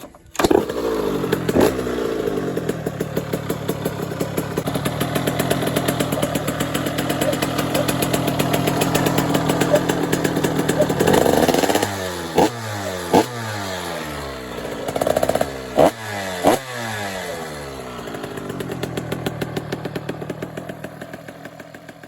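Engine of a rebuilt 2005 KTM motorcycle, running after the rebuild. It starts abruptly, then runs steadily. Roughly halfway through, the throttle is blipped several times and the revs fall back after each blip. Near the end the sound fades away.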